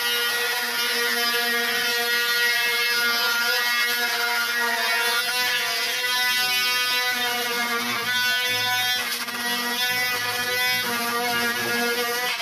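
Electric angle grinder running, a steady high-pitched whine whose pitch shifts a few times as the disc works the rusty steel of a bus tailgate frame.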